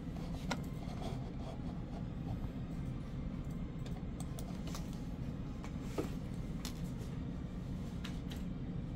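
Steady low hum of office background noise, with a scattered handful of sharp clicks from a computer mouse and keyboard; the sharpest come about half a second in and about six seconds in.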